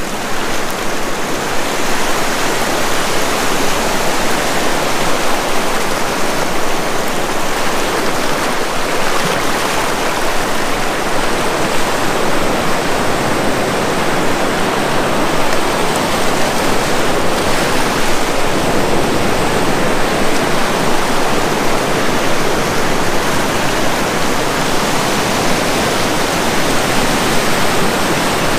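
Ocean surf washing and breaking over a rocky shore: a loud, steady rushing of water.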